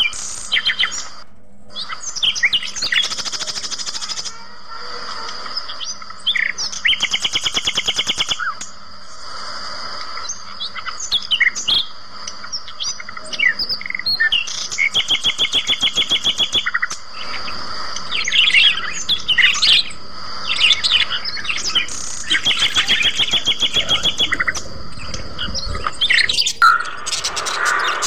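A flock of caged budgerigars chirping and warbling, with repeated runs of fast chattering trills. A steady high thin tone runs underneath.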